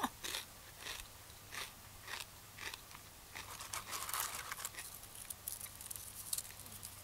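A person chewing crunchy food close to the microphone: separate crisp crunches a little under twice a second, then a denser run of crunching about halfway through.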